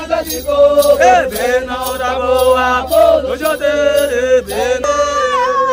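Voices singing a chant together over a regular beat of about two strokes a second, with long held and bending notes.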